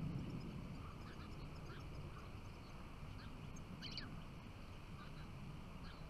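European goldfinches calling: short, faint chirps scattered through, with a brief louder burst of twittering about four seconds in, over a low steady background rumble.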